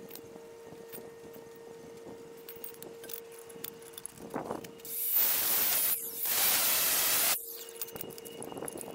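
Cordless angle grinder cutting galvanized steel tube in two short passes of about a second each, a loud hiss about five seconds in, between light clinks of the tube being set in the steel bench vise.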